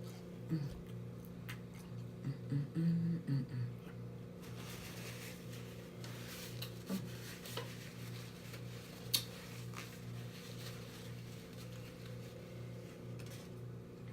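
Someone eating seafood close to the microphone: soft chewing and mouth sounds, a few short hummed tones in the first few seconds, and a single sharp click a little after nine seconds in, over a steady low hum.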